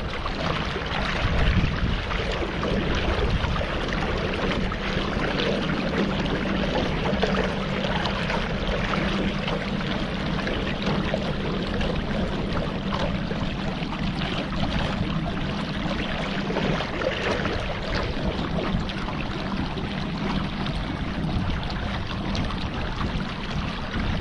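A boat under way on the river: a steady low hum with a constant rush of water and wind noise.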